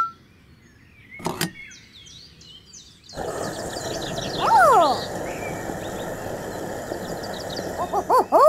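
Birds chirping, then about three seconds in a steady rushing sound of fuel pouring from a pump nozzle into a jerry can starts and keeps running. A short falling tone sounds partway through, and a rising-then-falling tone comes near the end.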